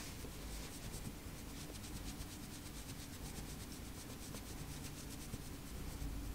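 Fingers scratching through a cat's chin and cheek fur close to the microphone: a faint, rapid, rhythmic scratchy rubbing, several strokes a second.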